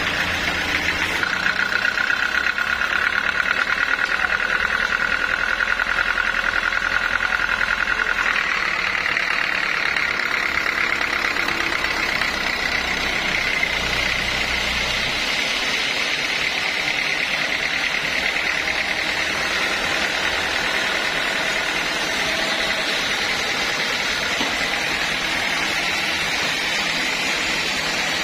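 Sawmill saw running steadily, its whine stepping up in pitch about eight seconds in and then holding.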